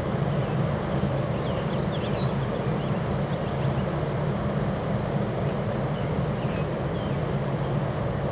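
Strong wind buffeting the microphone: a steady, loud, low rumble.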